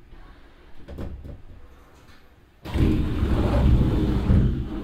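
The door engine of a Hokuso Railway 9100-series train working a sliding door at a station stop: after a quiet spell with a few faint clicks, a sudden loud rush starts about two and a half seconds in and runs for about two seconds.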